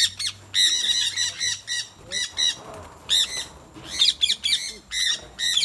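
Small parrots squawking and chattering: rapid, wavering high calls from several birds, coming in short overlapping bursts with brief gaps between them.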